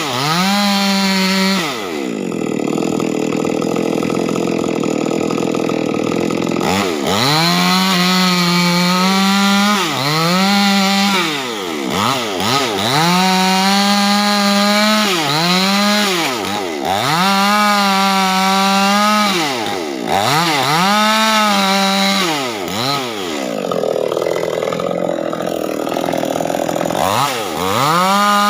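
Proquip mini chainsaw ripping lengthwise through a large wooden beam, its engine revving up and easing off again and again. The pitch drops lower and rougher for a few seconds near the start and again near the end.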